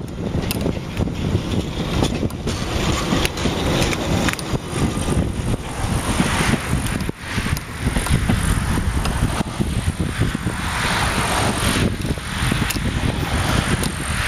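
Narrow-gauge diesel railcar running away into the distance, with a constant loud, low rumbling noise. A car passing on a nearby road adds to it about eleven seconds in.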